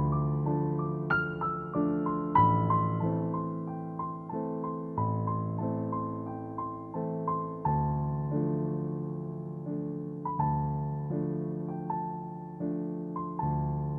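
Slow, gentle piano music: single struck notes, each dying away, over a low note that changes every two or three seconds.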